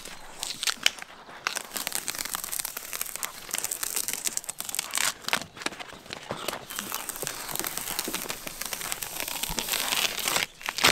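Bark being torn off a mimosa trunk by hand in long strips: a continuous crackling, tearing sound that stops briefly near the end.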